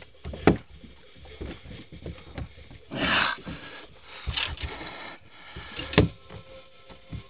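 Handling noise, knocks and rubbing, with a sharp knock about half a second in and another near six seconds. Between them come two short breathy hisses, a man's pained breaths with a fishhook lodged in his finger.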